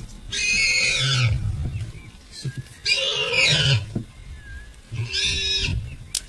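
A wild animal calling loudly three times, each call about a second long.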